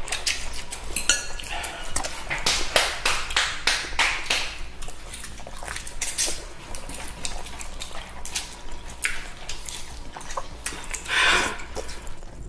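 Noodles being slurped and chewed close to the microphone: rapid wet smacking with many sharp clicks, and a louder slurp near the end.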